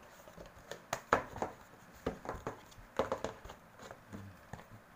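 Plastic collapsible chopping board with rubberized folding sides being handled and pulled open into a basin: a series of light clicks and knocks, the loudest about a second in and again around three seconds.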